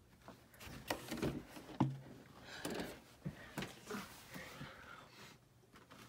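Faint, scattered clicks and taps over low small-room background noise.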